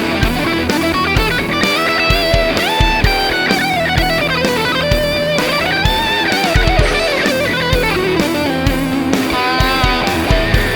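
1994 Hamer Chaparral electric guitar played through a Zvex Box of Metal fuzz pedal into a Marshall JCM800 amp, with heavy distortion. It plays sustained single-note lead lines with pitch bends and slides over short low chugged notes.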